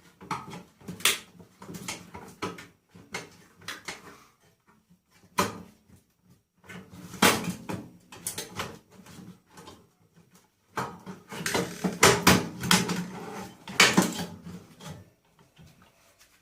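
Metal parts of a microwave oven clanking, knocking and rattling as it is taken apart by hand for scrap, in irregular bursts with a dense spell of clattering in the latter half.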